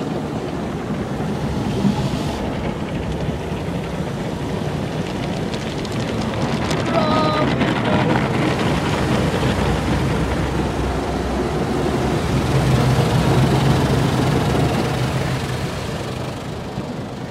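Automatic car wash heard from inside the car's cabin: rotating cloth brushes scrubbing the body and windows under water spray, a steady rushing noise that swells in the middle.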